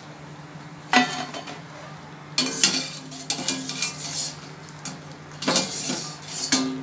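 A steel slotted skimmer scrapes and clinks against the side of a stainless steel kadai as fried chips are scooped out of the oil. The clatter comes in three bouts, about a second in, around two and a half seconds, and near the end, over a steady low hum.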